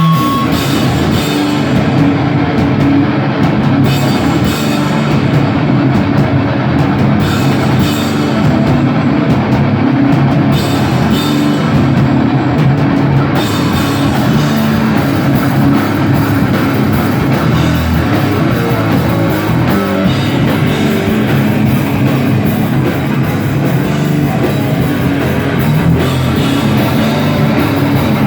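A heavy metal band playing live: guitar and drum kit in a loud, steady wall of sound. The treble fills out about halfway through.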